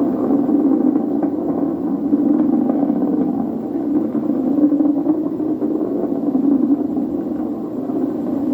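Atlas V rocket's RD-180 main engine and two solid rocket boosters heard from afar during ascent: a steady, crackling roar.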